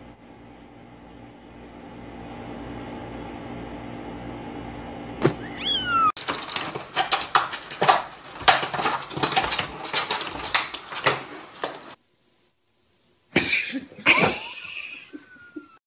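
A cat's short call falling in pitch, then a cat door's flap clattering and knocking rapidly for about six seconds as a cat squeezes through it. After a moment of silence come a few knocks and another short cat call near the end.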